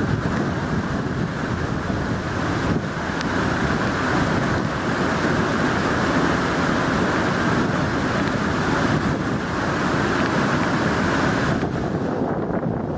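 Steady rushing of a small waterfall pouring into churning whitewater rapids. The higher hiss thins out near the end.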